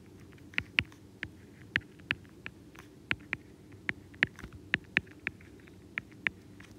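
Stylus tapping and ticking against a tablet screen during handwriting, a few irregular ticks a second, over a faint steady low hum.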